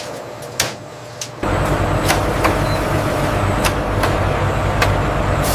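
Factory processing machinery: a quieter hum with a few sharp clicks, then, about a second and a half in, a sudden switch to a louder steady machine rumble with scattered clicks and knocks.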